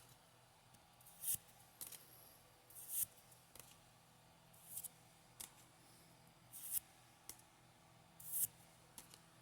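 Pokémon trading cards being handled and slid one at a time through the pack, making faint, short swishes and flicks about once a second.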